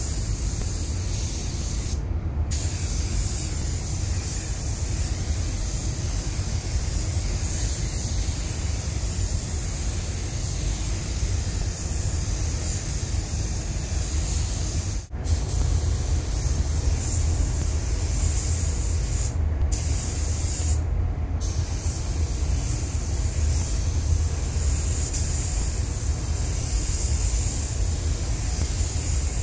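Compressed-air gravity-feed paint spray gun hissing steadily as it sprays a coat onto a car body panel. The high hiss stops briefly three times, and the sound cuts out for a moment about halfway.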